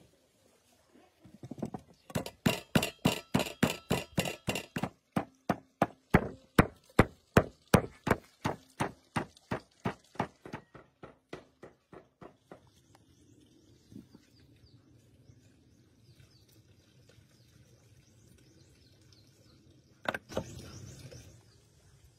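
Rhythmic chopping, about three sharp strikes a second, that stops about twelve seconds in; two sharp knocks and a short scrape near the end.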